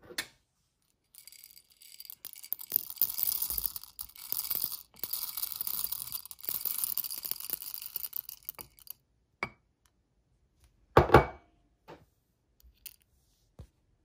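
Whole coffee beans poured into the metal hopper of a Heihox hand coffee grinder, a busy rattle of beans clattering in for about seven seconds. It is followed by a few scattered clicks and a louder double knock about eleven seconds in.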